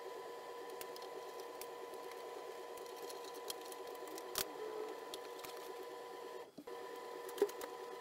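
Quiet workshop room tone with a steady hum, broken by a few faint clicks and taps from hands working on motorcycle parts. A sharper click comes about four and a half seconds in and another about seven and a half seconds in.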